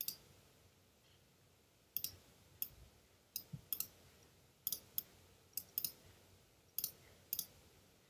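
Computer mouse clicking: about a dozen short, sharp clicks at irregular intervals, several of them in quick pairs like double-clicks.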